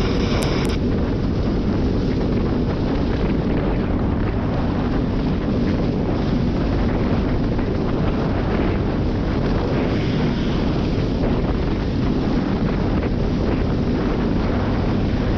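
ATV engine running steadily at speed, with heavy wind rushing over the microphone.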